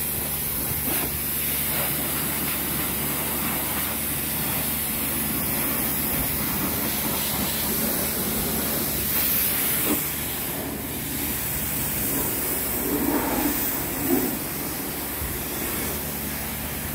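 High-pressure washer spraying water at a car wash: a steady hiss that starts abruptly, with a low steady hum underneath.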